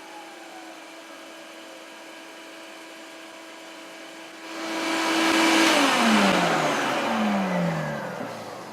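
Combination belt and disc sander running with a shop vacuum, a steady motor hum. About four and a half seconds in, a loud rushing sanding noise rises. Then the motors are switched off and wind down, their pitch falling over the last few seconds.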